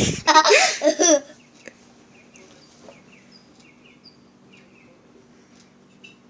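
A person's loud voice cries out for about a second. Then come faint, short, repeated chirps like small birds, some gliding down, over a low steady hum, heard through a TV's speakers.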